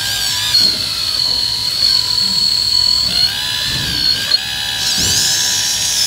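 Small hydraulic RC excavator's electric oil pump whining steadily, its pitch rising and falling a couple of times as the arm and bucket push against the sand under load.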